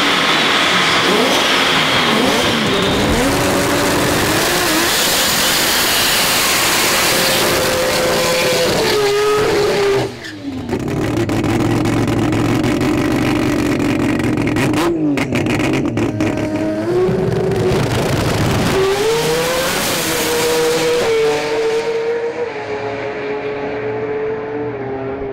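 Mazda 20B three-rotor engines at full power: first a turbocharged 20B on boost running hard on a chassis dyno, then a 20B drag car running down the strip, its pitch climbing and dropping with each gear change. The sound fades with distance over the last few seconds.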